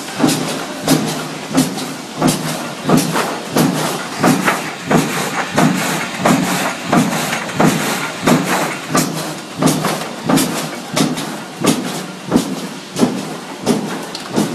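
Roll-fed paper-processing machine running in production, its mechanism cycling with a sharp clack and a heavier thump about every two-thirds of a second, over a steady mechanical hiss.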